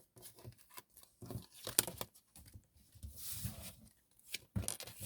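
Tarot cards being handled, with irregular rustles and soft clicks of card stock against card stock.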